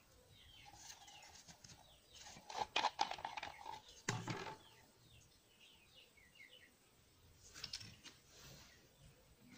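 Thin plastic bottle crackling and clicking in the hand as its screw cap is twisted off, loudest about two and a half to three seconds in, with a sharp knock just after four seconds and more crackling near eight seconds. Small birds chirp with short falling notes in the background.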